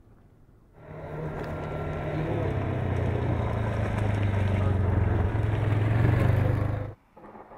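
Small motorbike engine running at a steady speed as the bike rides up and passes close by, growing louder. The sound starts and cuts off suddenly.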